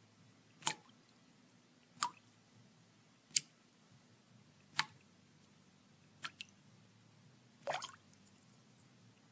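Water drops falling one at a time, at first about every second and a half. Later two land close together, then a longer, splashier drip.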